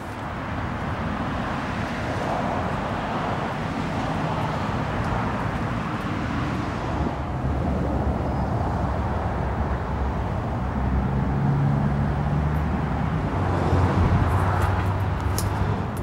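A motor vehicle engine running close by over a steady outdoor noise bed, its low hum getting louder in the second half. A few light clicks come near the end.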